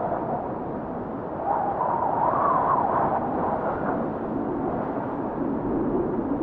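Wind blowing steadily, a rushing noise with whistling gusts that rise in pitch and swell about a second and a half in, easing off again a couple of seconds later.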